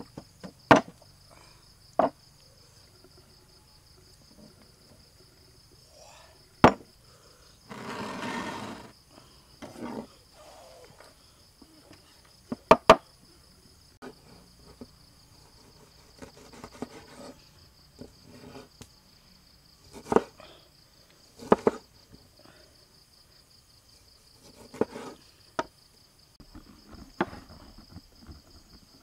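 A stone pestle strikes twice in a stone mortar, then a knife knocks sharply, now and then, against a wooden board as limes are cut in half, with a short rustle about eight seconds in. A steady high drone of crickets runs throughout.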